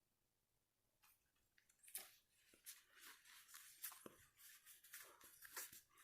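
Quiet rustling and crinkling of a Pokémon trading-card booster pack's foil wrapper and its cards being handled: a string of quick, irregular crackles starting about a second in.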